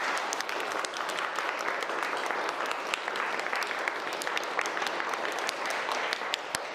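A classroom of students applauding together, many hands clapping steadily.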